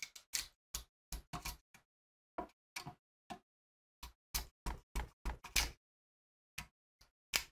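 Wood chisel cutting into a black locust beam by hand: a run of short, sharp, irregular strokes and knocks, with a brief pause about two-thirds through.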